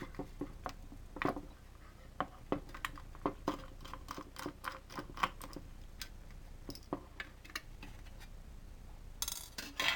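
Small irregular clicks and taps of a screwdriver and loose screws against the floodlight's metal housing as the reflector screws are undone, then a short scraping rattle near the end as the thin metal reflector is lifted out.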